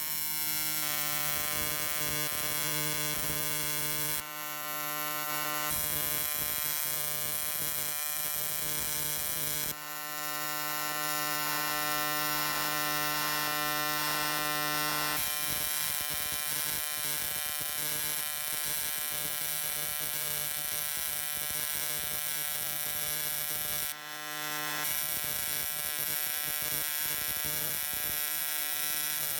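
AC TIG welding arc on 6061 aluminium plate at about 160 A, a steady electric buzz. The buzz dips briefly three times, about four, ten and twenty-four seconds in.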